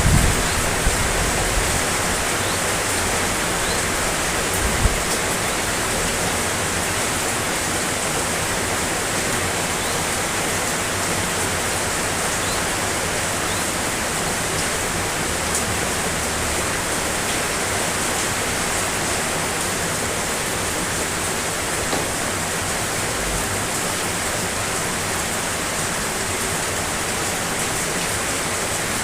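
Steady rain falling, a dense, even hiss, with a few brief knocks within the first five seconds and one more later on.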